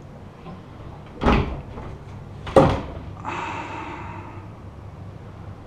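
Wardrobe doors being handled: two sharp knocks about a second apart, then a noisy slide lasting about a second.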